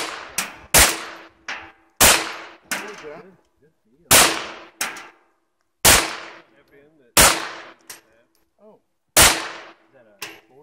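Semi-automatic pistol fired about ten times at uneven intervals, with steel target plates ringing after some of the hits.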